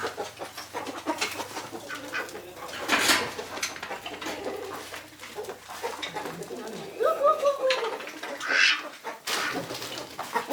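Chickens clucking while feeding, with one drawn-out falling call about seven seconds in and a couple of short scratchy sounds between.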